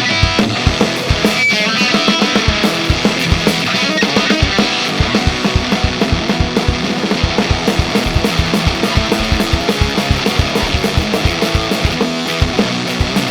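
Electric guitar played through a ZVex Fuzz Factory 7 germanium fuzz pedal into a Marshall JCM 900 valve amp, a heavily fuzzed rock riff, over a drum kit playing a steady fast beat.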